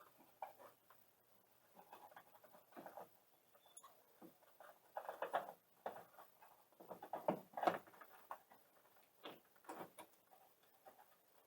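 Faint, irregular handling sounds: the wiring and rubber grommet of an LED tail light being fed through a hole in the car's body, with plastic and rubber rubbing and clicking in short scratchy bursts.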